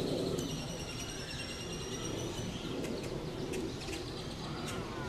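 Birds chirping, with repeated high short calls over steady outdoor background noise.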